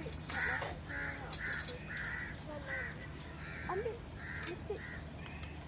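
Crows cawing: a quick run of harsh caws, then two more a little later, with an occasional light clink of cutlery on dishes.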